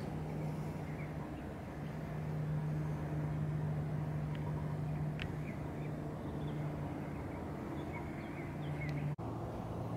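A steady low mechanical hum, like a motor or engine running, over a background haze, with a few faint high chirps. About nine seconds in the sound cuts out abruptly for an instant, and after that the hum is lower in pitch.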